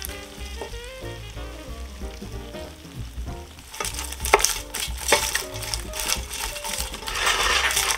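A wooden spoon stirring syrup-coated popcorn in a stainless steel pot: a crisp rustling and crunching, faint at first, then louder and busier from about four seconds in. Light background music plays underneath.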